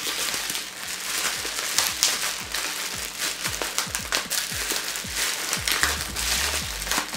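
Background music with a steady electronic drum beat: short, falling bass hits repeating a few times a second.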